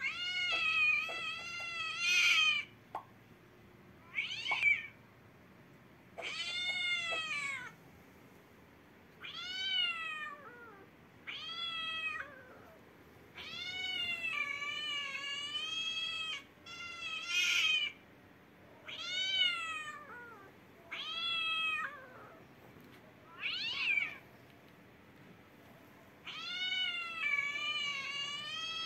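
Cat meowing over and over: about a dozen long, drawn-out calls, each a second or two, rising then falling in pitch, with short gaps between them.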